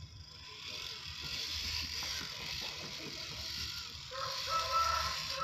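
Electric motor and gear drivetrain of a 1:10 scale RC crawler whirring and clicking as it crawls slowly through mud and dead leaves. A rooster starts crowing in the background about four seconds in.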